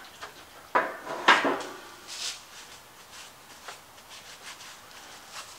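Two loud knocks with a short ringing clatter about a second in, as the acetone can is set down on the metal workbench. After that comes faint rubbing as an acetone-soaked rag is wiped over the bare cast-iron small-block Chevy engine block.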